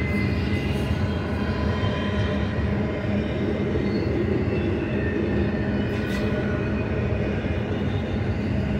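Container cars of a BNSF double-stack intermodal train rolling past: a steady rumble of steel wheels on rail, with faint high ringing tones over it.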